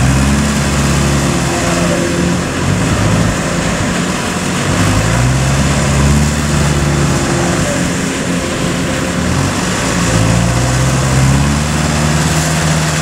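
Kubota combine harvesters' diesel engines running hard under heavy load while one combine tows another out of deep mud. The engine note surges up in pitch three times, a few seconds apart.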